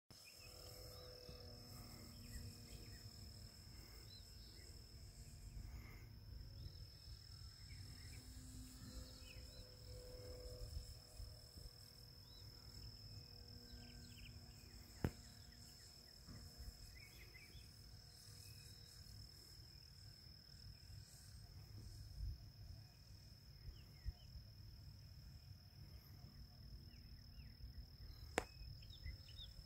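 Faint evening field ambience: a steady high-pitched insect chorus, low wind rumble on the microphone, and a faint motor hum from the distant RC aerobatic plane that swells and fades several times. Two sharp clicks, one midway and one near the end, are the loudest sounds.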